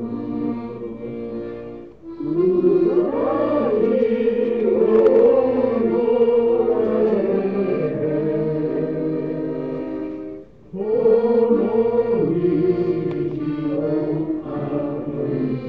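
Group singing of a Russian folk song with accordion accompaniment: accordion chords alone at first, the voices coming in about two seconds in. The music breaks off briefly about ten and a half seconds in, then the singing resumes.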